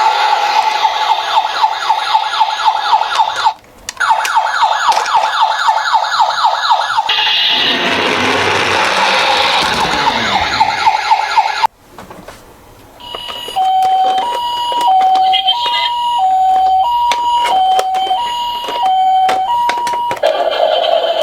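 Electronic emergency-vehicle siren sounds: first a fast warbling yelp, broken off briefly twice, then a sweeping wail that stops abruptly. After a short lull comes a two-tone ambulance siren alternating between two pitches, each held about half a second.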